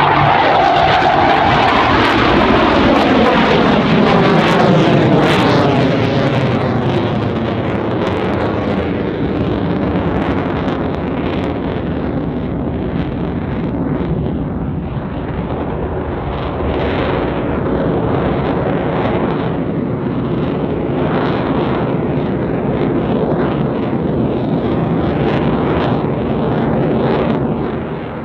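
Loud jet noise from an RCAF CF-18 Hornet's twin General Electric F404 turbofans as the fighter pulls up and passes, with a falling sweep in pitch over the first few seconds. The noise then settles into a steadier sound as the jet flies on.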